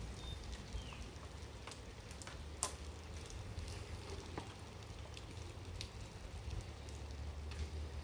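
Sparse rain after a downpour, with scattered drops ticking and tapping on hard surfaces and one sharper tap about two and a half seconds in, over a steady hiss and low rumble.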